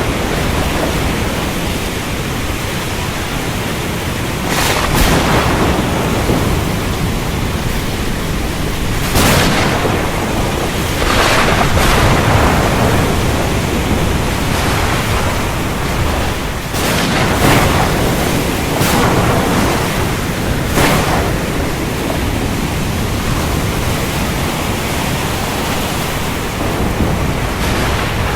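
Heavy rain pouring steadily under a deep rumble of thunder, with sharp thunder cracks breaking through about seven times.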